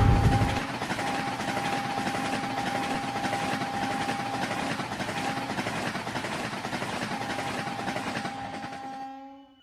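A train running: a steady rushing rumble with a faint steady hum in it, fading out near the end.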